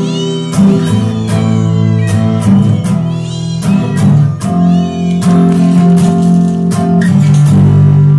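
Acoustic guitar music, with notes plucked and strummed in a steady run.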